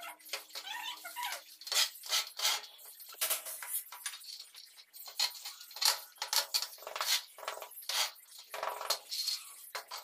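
Irregular scraping strokes of a steel trowel and a wooden straightedge over a wet sand-cement mortar floor bed, with metallic clinks from the trowel.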